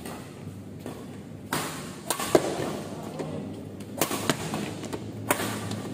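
Badminton rackets hitting a shuttlecock in a doubles rally: several sharp hits at uneven intervals, the loudest about two seconds in.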